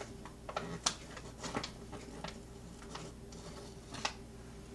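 Soft, scattered clicks and light scrapes of a measuring spoon scooping and levelling baking soda from its container, over a faint steady hum.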